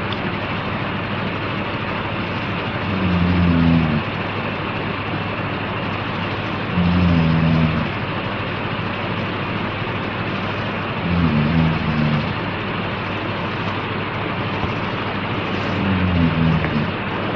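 A man snoring: four low-pitched snores about every four seconds, each about a second long, over a steady hiss.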